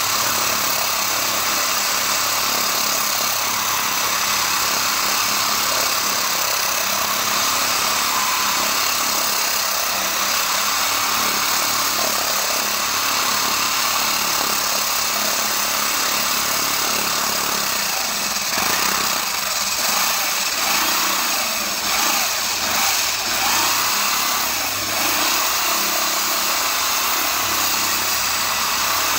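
Electric core drill running steadily as its water-fed core bit grinds into concrete. About two-thirds of the way in the sound turns uneven, with scattered short knocks from the bit cutting.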